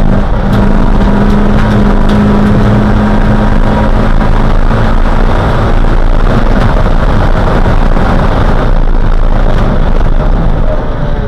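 Neon race car's four-cylinder engine running hard under load at speed, heard from inside the cabin together with wind and road noise. Its pitch holds steady for about six seconds, then shifts and varies as the driving changes.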